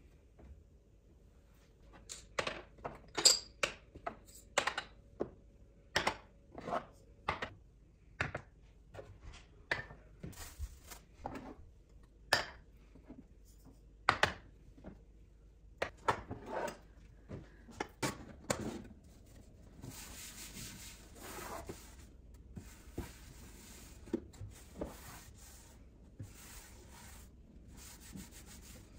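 Glass spice jars with wooden lids knocking and clinking one after another as they are lifted out of a kitchen cabinet and set down. From about twenty seconds in, a steady rubbing of a cloth wiping the emptied cabinet shelf.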